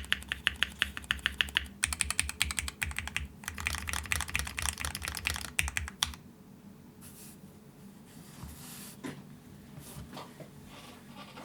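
Fast typing on a gasket-mounted custom mechanical keyboard with Mekanisk Ultramarine switches on an aluminium plate, with a rapid run of key clicks. The typing stops about six seconds in, leaving only a few faint taps and rustles.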